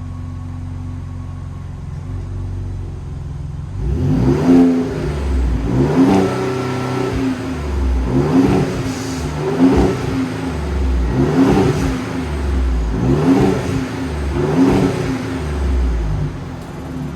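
2018 Ford Raptor's 3.5-litre twin-turbo EcoBoost V6 on its stock exhaust, idling, then from about four seconds in revved in about seven quick blips, each rising and falling in pitch, settling back toward idle near the end.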